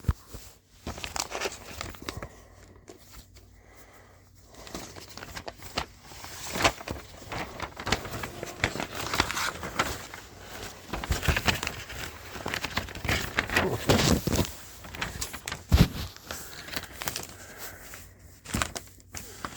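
Paper instruction booklet being handled and its pages turned: irregular rustling and crinkling, sparse at first and busier from about a third of the way in.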